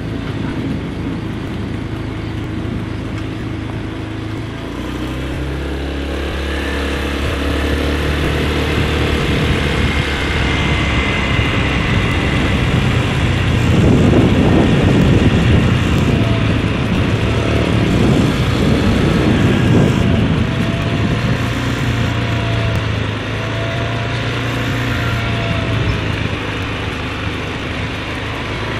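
Small motorbike engine running at low speed, its hum rising and falling, with wind rushing over the microphone that is strongest about halfway through.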